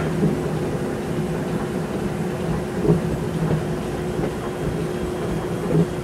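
Steam locomotive running with its train, heard through a microphone mounted on the front of the engine: a steady rumble with a constant hum and a few sharp clacks.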